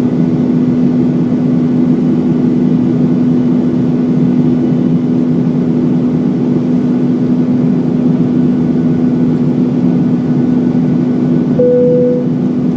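Steady cabin drone of a Boeing 737-900 in flight, engine and airflow noise heard from inside the cabin, with a constant low hum. A short, higher single-pitched tone sounds near the end.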